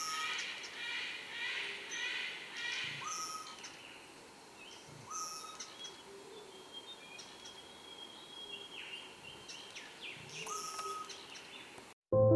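Wild birds calling: a quick run of repeated chattering notes in the first few seconds, then short calls recurring about every two and a half seconds, with a long steady high tone for a few seconds in the middle.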